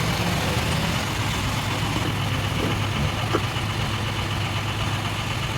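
An engine running steadily at idle, with a faint click a little past halfway.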